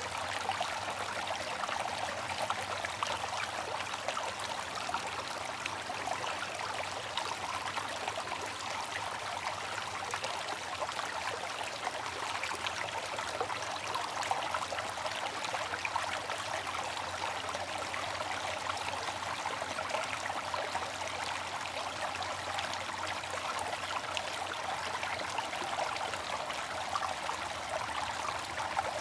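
Bamboo water fountain, its water trickling steadily without pause.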